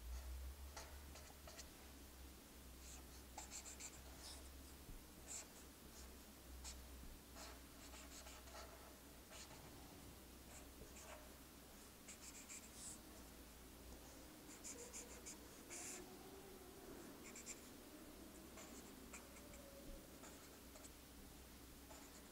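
Marker pen drawing on paper: faint, intermittent squeaks and scratches of the felt tip as short lines are drawn one after another.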